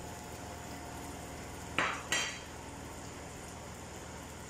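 Two quick clinks of kitchen utensils against a pan or plate, close together, over a steady background hum.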